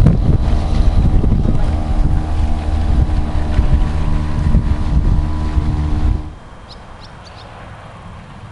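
Small boat's outboard motor running steadily, a continuous drone under heavy wind buffeting on the microphone; the sound cuts off abruptly about six seconds in, leaving much quieter outdoor ambience with a few short high chirps.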